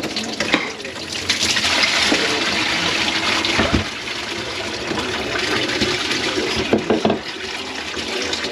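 Water running and splashing in a clogged kitchen sink, louder from about a second in until about four seconds in.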